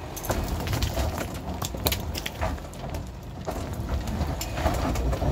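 Pickup truck engine running at a low, steady rumble as it crawls up a rocky track, with loose stones crunching and cracking under the tyres.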